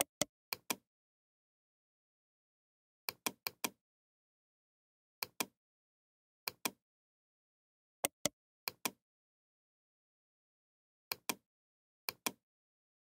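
Computer mouse clicks, mostly quick double-clicks, with one run of four clicks, coming every one to three seconds with dead silence between.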